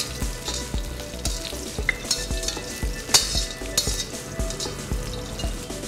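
Dried Guntur red chillies and skin-on garlic cloves sizzling in hot oil in a steel wok, stirred with a steel ladle that scrapes and clicks against the pan, with one sharper knock about three seconds in.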